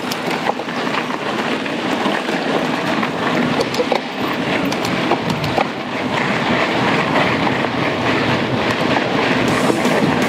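Mountain bike ridden fast over a rough dirt trail: steady tyre noise on loose ground with the bike rattling and scattered sharp clicks and knocks.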